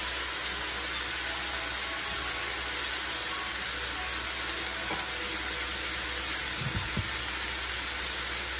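Chunks of beef sizzling steadily in a frying pan, with a couple of soft knocks about seven seconds in.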